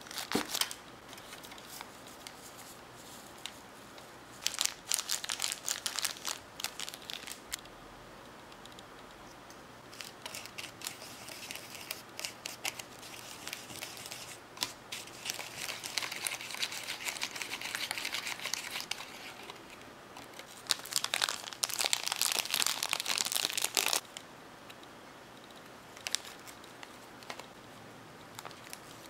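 Plastic packaging of a Popin Cookin candy kit crinkling in several bursts as a packet is torn open and handled, with a stretch in the middle of a small plastic spoon scraping as it stirs the chocolate mix in a plastic tray. The loudest crinkling comes near the end, as a plastic piping bag is handled.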